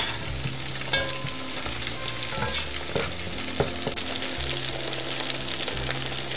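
Food frying in hot oil in a pan, a steady sizzle, with wooden spatulas stirring and a few light knocks against the pan.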